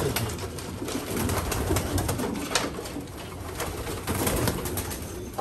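Racing pigeons cooing in a loft, with scattered short clicks and rustles among them.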